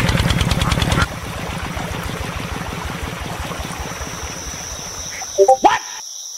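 Miniature model engine of a toy water pump running with a rapid, even beat, then stopping abruptly about a second in as it runs out of fuel. Water trickles after that, a steady high insect chirring sets in, and a few short chirps come near the end.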